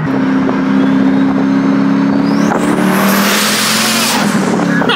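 Twin-turbocharged 5.7-litre LS1 V8 of a 2000 Corvette C5 pulling under throttle. About two and a half seconds in, the turbos spool with a whistle that rises steeply in pitch, followed by a rushing hiss that cuts off suddenly a little after four seconds in.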